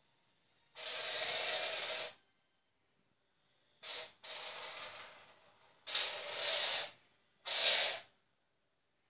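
A small metal screw scraping and rattling across a wooden floor as a kitten bats it about, in several separate bursts of scraping noise.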